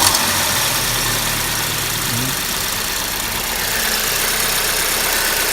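Audi A6's 2.0-litre turbocharged engine idling steadily, just after being started.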